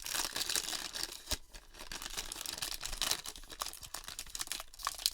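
Wrapper of a 2021 Topps Big League baseball card pack crinkling and tearing as it is ripped open, with a sharp click about a second in.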